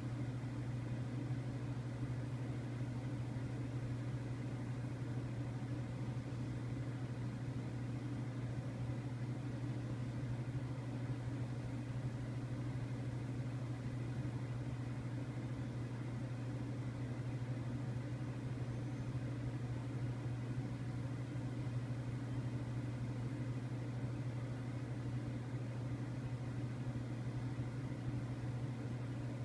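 Steady low mechanical hum with a faint hiss, unchanging throughout.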